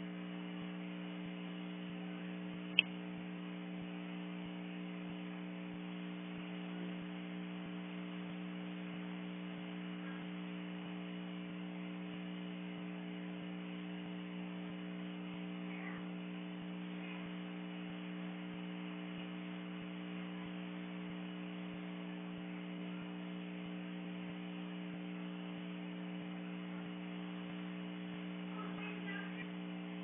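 Steady electrical hum holding several fixed pitches, with one sharp click about three seconds in.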